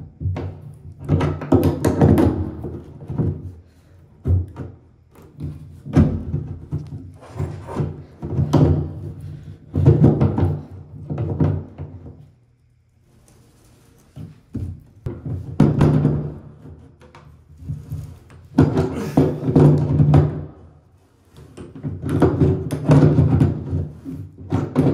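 Background music, with metal knocks and scraping as pliers and a hammer handle turn a loosened tub drain out of its threads in stretches of a second or two.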